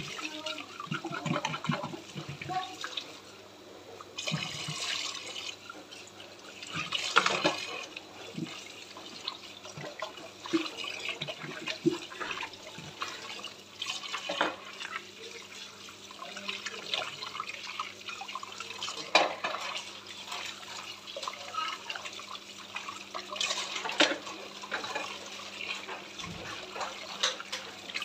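Kitchen tap running into a sink while plastic bottles and glasses are rinsed by hand, water splashing over them, with scattered knocks and clinks as the items are handled.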